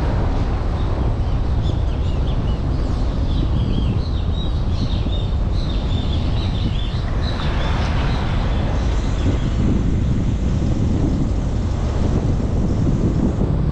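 Steady low rumble of wind and road noise from a car driving. High chirping calls, typical of jungle birds, come through over it for the first half and stop about eight seconds in.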